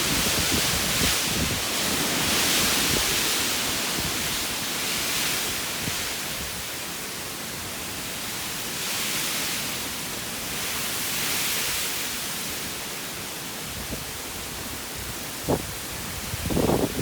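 Storm rain and wind: a steady rushing hiss that swells and eases several times. A couple of short knocks sound near the end.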